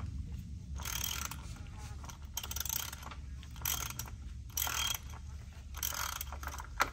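Ratchet wrench clicking in a series of short runs, about one a second, as the oil filter housing is screwed back into the 2.7-litre engine of a 2021 Ford Bronco during an oil change.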